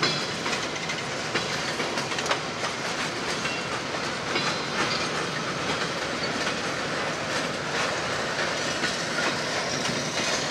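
Freight train boxcars rolling past on steel wheels, with a steady rumble and scattered clicks as the wheels cross rail joints.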